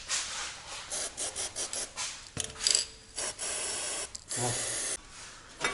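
Work noise from undoing the exhaust downpipe: a series of short rasping, scraping sounds, then two steady hisses lasting under a second each, about three and four and a half seconds in.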